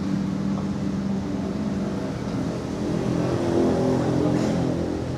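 Motorcycle engine running, revving up and getting louder about three seconds in before easing back.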